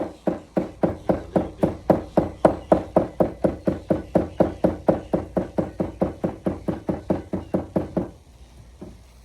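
Rapid, even knocking, about four strokes a second, as a freshly glued patch on a bicycle inner tube is tapped down firmly to bond it; it stops about eight seconds in.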